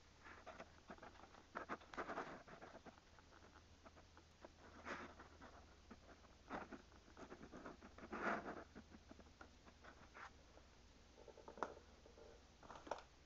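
Faint, scattered rustles and light knocks of someone moving about and handling things, over a low steady hum.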